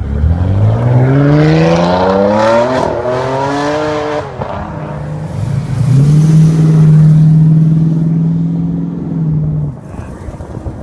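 Loud supercar engine accelerating hard, its pitch climbing steeply for about four seconds with a shift partway through; then an engine revs up again and holds a steady high rev for about four seconds before dropping away.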